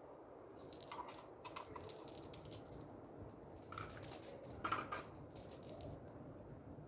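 Faint, irregular crackling and light ticking as small white bits are crumbled by hand and scattered onto paving stones, with a louder crackle about two-thirds of the way through.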